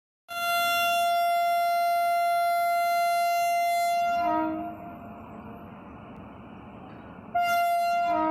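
Twin-tone horn of a WAP-5 electric locomotive: a long high note of about four seconds dropping to a brief lower note, then about three seconds later a short high note again dropping to the low note.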